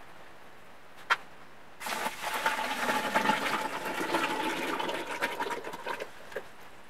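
Thick white casting slurry poured from a plastic bucket into a mould, a rushing, splashing pour lasting about four seconds. A single sharp knock comes just before the pour starts.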